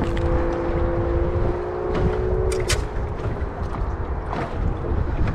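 Wind buffeting the microphone on a small boat, with a steady hum that fades out about two seconds in. Two sharp clicks follow shortly after.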